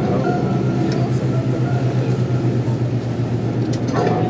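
Tour coach engine running steadily, heard from inside the cabin as an even low drone with road rumble.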